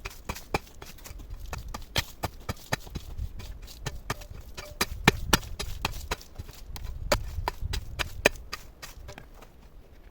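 Hard objects knocking and clacking together in quick, irregular strikes, several a second, over low thuds, easing off near the end.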